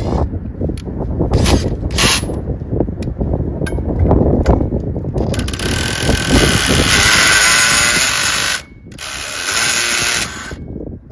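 Cordless drill with a socket on the crankshaft nut, trying to turn over a Rotax 467 twin-cylinder two-stroke snowmobile engine that won't start. Clicks and knocks come first, then the drill runs hard in two long stretches with a short break between them near the end.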